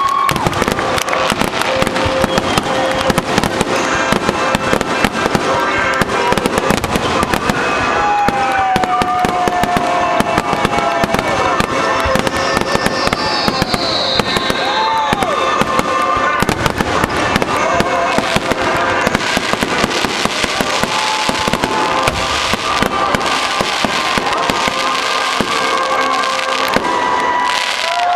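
Dense barrage of aerial firework shells bursting in rapid succession, a continuous crackle of many bangs a second. A few whistling shells glide down in pitch through it.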